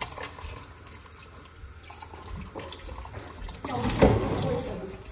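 Kitchen tap running into a sink as strawberries are rinsed in a plastic container. The water splashes louder, with a knock, about four seconds in.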